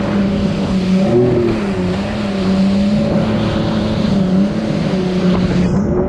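Four-stroke Yamaha Superjet stand-up jet ski running under throttle on the water. The engine note rises and falls as the throttle changes, over a steady hiss of spray and wind, and the hiss drops away near the end.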